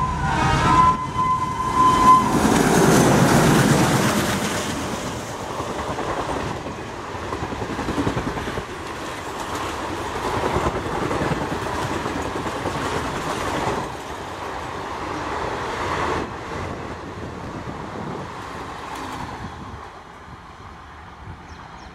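Twin ALCO diesel locomotives, a WDM3A leading a WDM3D, pass at speed on an express train. A horn note ends about two seconds in, and the locomotives go by loudest about two to four seconds in. The long train of coaches follows, rushing past with a clickety-clack of wheels over rail joints, and fades as the train recedes near the end.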